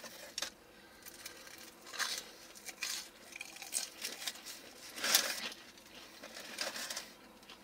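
Intermittent rustling and crinkling from a foam takeout container as French fries are picked out of it by hand: about half a dozen short, scattered bursts.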